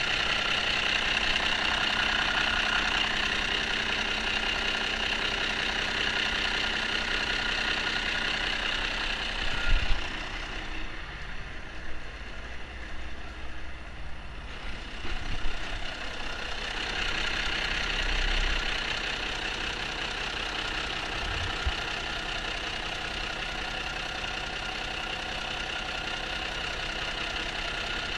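Cummins Small Cam 290 inline-six diesel idling steadily with a diesel clatter. It grows fainter for several seconds in the middle, and there are a couple of brief thumps.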